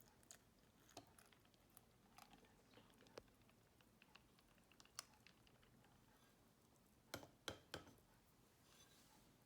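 Near silence with scattered faint clicks and taps from handling the milk and the blender cup, and a few louder knocks about seven seconds in.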